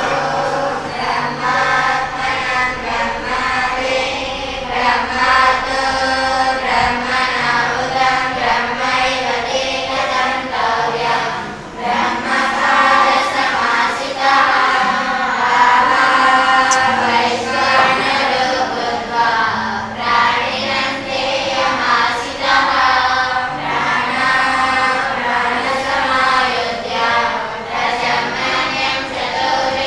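A group of girls chanting a prayer together in unison, a sung thanksgiving before eating, with a brief pause between phrases about twelve seconds in.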